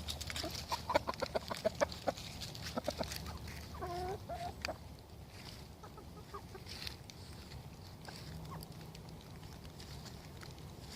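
Chickens clucking: a quick run of short clucks for the first three seconds, a drawn-out call that bends in pitch about four seconds in, then only a few scattered faint clucks.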